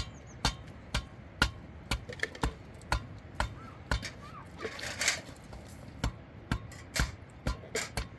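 Steady hammering, about two sharp strikes a second, typical of nailing boards together for a wooden dog house. A brief rustling rush about five seconds in.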